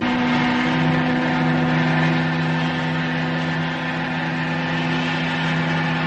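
Ship's whistle blowing one long continuous blast: two steady low notes sounding together, the lower one joining about half a second in, over a steady hiss.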